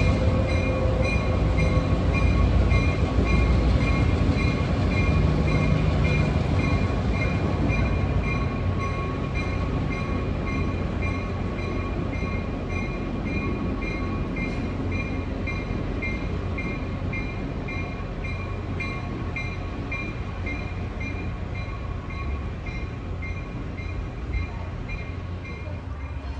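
A train rolling past, a steady low rumble loudest a few seconds in and slowly fading, with a faint regular repeating tone above it.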